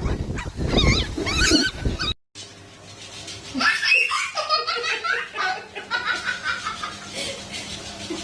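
A small dog yelping over loud rumbling noise, then after a brief break a person laughing in repeated bursts.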